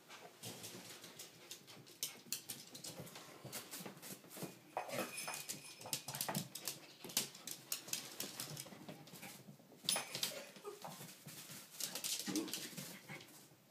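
A Yorkie puppy and a bichon moving about the floor: quick, irregular clicks and taps of claws and paws, with a brief high dog whimper about five seconds in.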